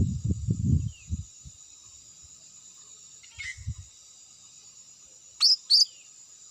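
A bird gives two sharp, high calls that sweep downward, close together near the end, after a fainter call about halfway through. A steady high insect drone runs underneath, and low rumbling noise fills the first second.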